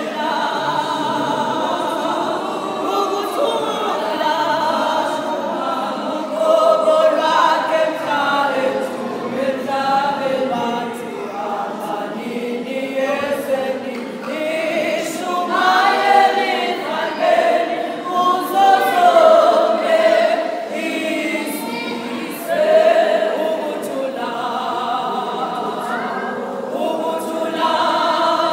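Women's church choir singing unaccompanied, many voices together in harmony with long held notes.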